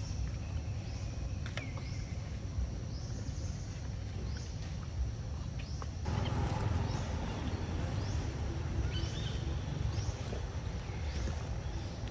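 High-pitched arching calls repeating about once a second over a steady low outdoor rumble, with a few sharp clicks.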